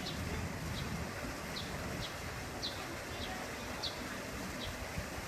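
A small bird chirping repeatedly, short high notes coming about every half second, over a steady low background rumble.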